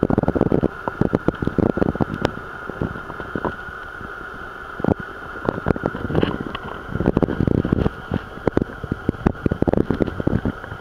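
Irregular rumbling gusts and crackling clicks, like wind and handling on the microphone, over a steady high hum.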